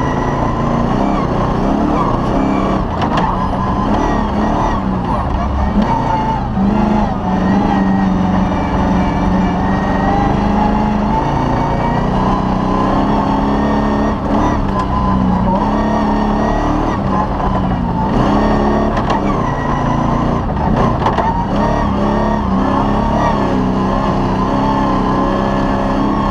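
Cross-country rally car's engine running hard, heard from inside the cockpit, its revs rising and falling as the car accelerates and slows along a rough dirt track, with occasional knocks from the bumps.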